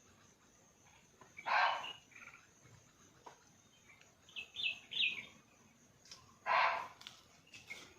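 Two loud, short barks of a barking deer (Indian muntjac), about five seconds apart. A small bird chirps three times between them.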